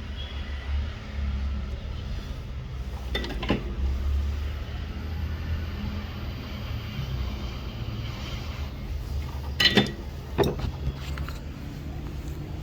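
A few light clicks and clinks of small tools and parts being handled on a repair bench, two near the start and two louder ones later, over a steady low hum.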